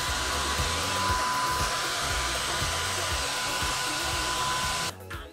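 Handheld hair dryer blowing steadily, with a steady whine over the rush of air, drying a fresh coat of liquid latex makeup; it switches off just before the end.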